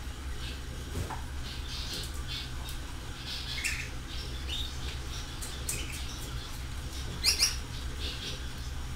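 Birds chirping in short, scattered high-pitched calls, with two louder, sharper squawks about seven seconds in, over a steady low hum.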